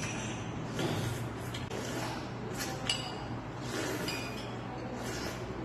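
Sipping cold broth from a small porcelain bowl in a few short bursts, with metal utensils clinking against the bowl; one sharp ringing clink about three seconds in.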